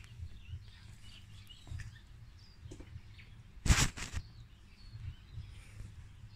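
Small birds chirping faintly outside, with a low rumble underneath and a short, loud noise a little past halfway through.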